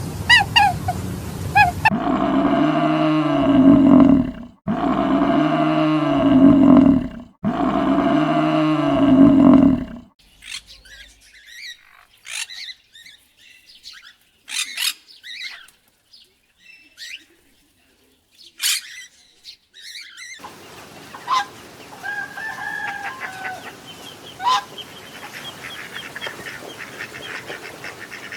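A rooster crowing three times, each crow a long call of about two and a half seconds, followed by scattered short chirps and clucks.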